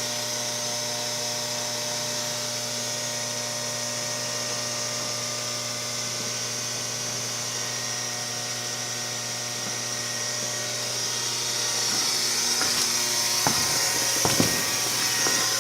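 Variable-speed electric motor of an induction furnace's lid-lifting mechanism running at its top speed, a steady whine. It grows louder about three-quarters of the way through, with a few clicks near the end.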